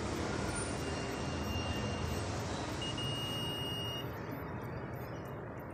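Fluke digital multimeter's continuity beeper sounding a single steady high beep, about a second long, starting about three seconds in, over a steady background hiss. The beep comes as the probes bridge the DC-bus positive and a U/V/W motor output of the inverter's IPM module: a short across the module's shorted high side.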